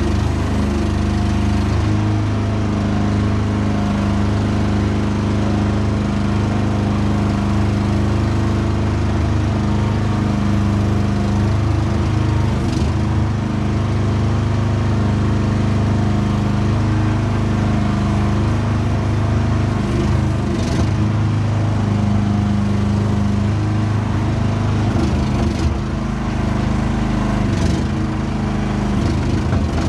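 Small excavator's engine running steadily, its pitch shifting a little a few times, with a few short clunks.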